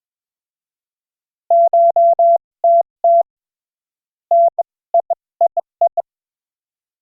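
Morse code (CW) sent as a single steady tone, keyed in dashes and dots in two short groups of characters. The first group is mostly dashes; the second mixes dashes and dots.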